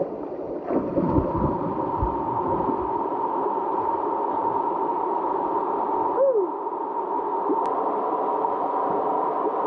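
Steady rush of a small rock cascade pouring into a river pool, muffled, heard with the microphone at the water surface. There is splashing and knocking in the first two seconds, and a short swooping gurgle a little after six seconds.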